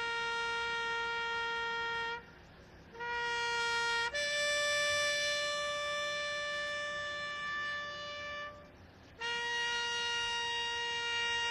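Military trumpets playing a slow ceremonial call in long held notes: a low note, a short break, the low note again, then a higher note held for about four seconds, another break, and back to the low note.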